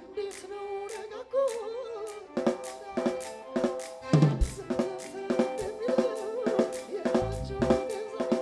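Ethiopian popular music from a live band, with the drum kit to the fore: regular snare and kick-drum strokes over sustained notes from the other instruments.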